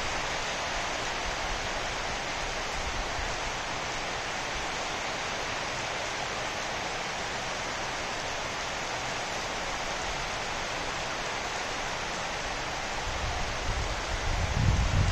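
Heavy rain falling steadily on dense tropical foliage, an even hiss. Near the end, gusts of wind rumble on the microphone and stir the leaves.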